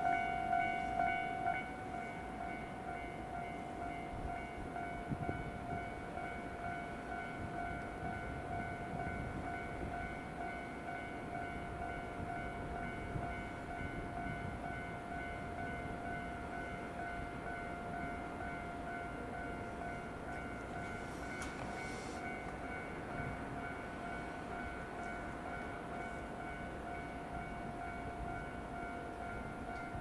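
Japanese level-crossing warning bell ringing in an even repeating ding, about two strikes a second. It is louder for the first couple of seconds, then drops to a steadier, quieter level over a low rumble.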